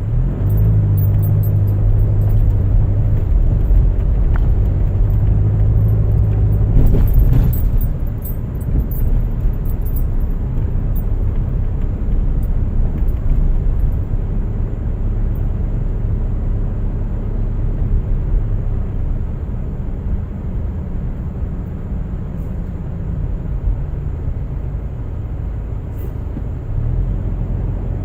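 Car's engine and tyre rumble while driving on a snowy winter road, steady and low, with a brief louder jolt and crackle about seven seconds in.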